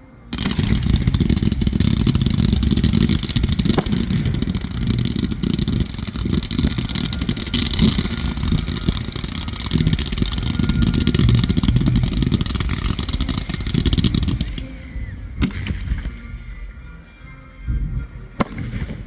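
A fireworks barrage starting suddenly: a dense, continuous run of bangs and crackle for about fourteen seconds, then thinning to a few separate sharp reports near the end.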